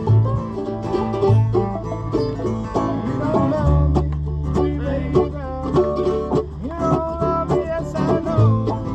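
Acoustic bluegrass band playing, with fast banjo picking to the fore over guitar and a low bass line.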